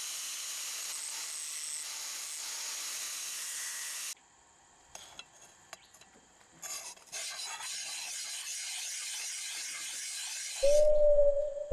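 Makita 9556NB angle grinder running with a sanding disc against an old charcoal iron, stopping suddenly about four seconds in. Then sandpaper rubbed by hand over the iron's metal surface, and near the end a loud steady tone begins.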